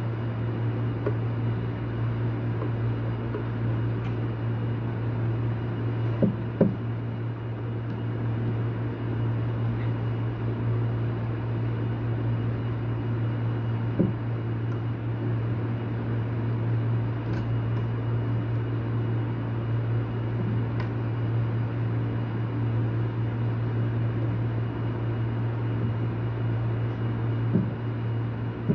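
Steady low machine hum, with a few light clicks and knocks from small parts being handled.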